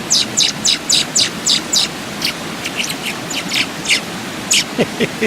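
Young American robin chirping over and over while being hand-fed: quick, high, downward-sweeping chirps, about three a second, over the steady rush of a creek.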